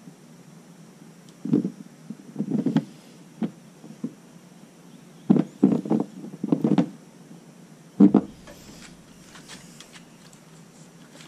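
A metal through-hull spout fitting scraping and knocking in a hole in a hollow plastic boat hull as it is pushed and twisted in for a test fit, in several short bursts of rubbing.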